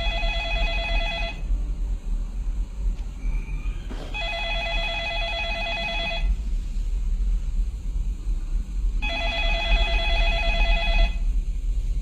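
A telephone ringing: three rings of about two seconds each with gaps of about three seconds between, the first already under way at the start. A low, steady rumble runs beneath.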